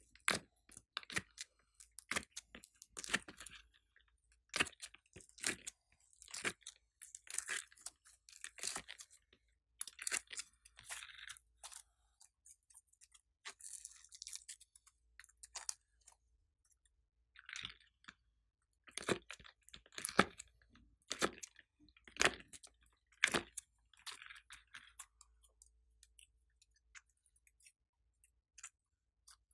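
Soft green slime being squeezed out of a mold, stretched and squished by hand, giving irregular sticky crackles and pops with a few short pauses.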